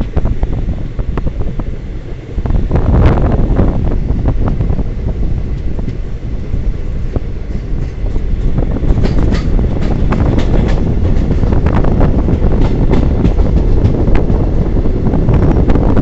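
Wind buffeting the microphone, a loud low rumble, with scattered clicks and knocks from about three seconds in.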